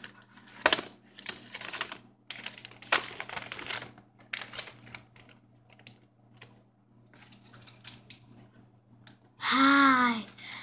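A surprise bag crinkling and rattling in several bursts over the first few seconds as it is shaken upside down and its small contents drop out, then quieter rustling. Near the end, a child gives a short, loud excited exclamation.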